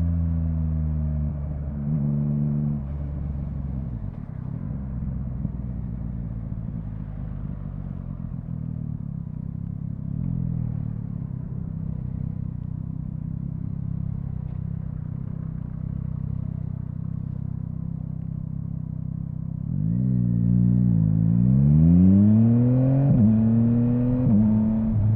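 Yamaha MT-09 inline-three motorcycle engine: the revs fall at first, with a short blip about two seconds in, then it runs low and steady for a long stretch. Near the end it accelerates hard, the pitch climbing in steps, with quick-shifter upshifts making brief dips between the rising pulls.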